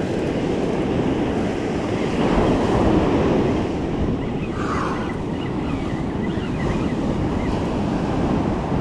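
Ocean surf washing up on a sand beach in a steady rush, with wind buffeting the microphone.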